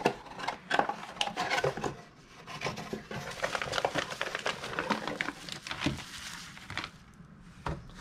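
Handling noise from a cardboard accessory box: scattered knocks and scrapes, then a dense crinkling rustle with many small clicks from about three to six seconds in, as cables in plastic bags are pulled out of it.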